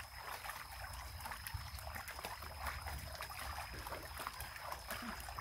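Water sloshing and splashing in a large plastic tub, churned by hands and a swimming monkey, with many small irregular splashes.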